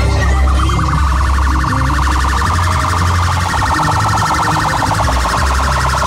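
Loud music from a car sound system with heavy bass, carrying a fast-pulsing, siren-like alarm tone that steps up and down in pitch.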